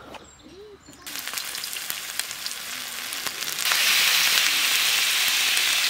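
Chicken pieces and sliced red onion sizzling in a frying pan on a portable gas barbecue, with small crackling spits. The sizzle starts about a second in and grows louder and harsher about three and a half seconds in.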